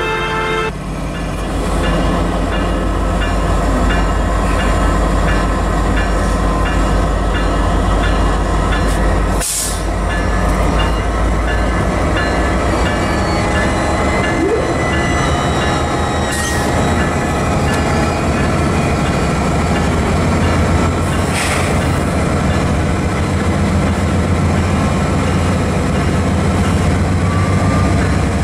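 Union Pacific diesel locomotive No. 8627 leading a coal train, running slowly past with a steady low engine drone and the rumble of the train on the rails, with a few short clicks.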